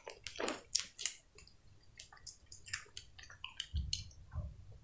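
Close-miked mouth sounds of eating soft sponge cupcake: wet chewing with many short lip and tongue smacks. Near the end come a few soft gulps as she drinks from a cup.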